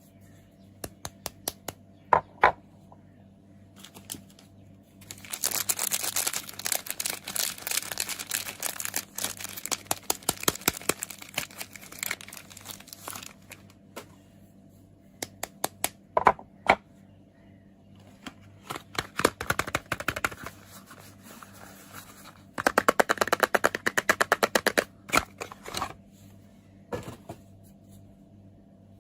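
Soap packaging crinkling and rustling as it is handled and unwrapped, in several long stretches, with separate sharp taps and clicks between them.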